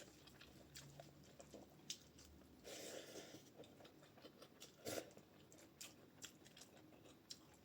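Faint chewing and small mouth clicks of a person eating rice and bean dal, with a sharper smack about five seconds in.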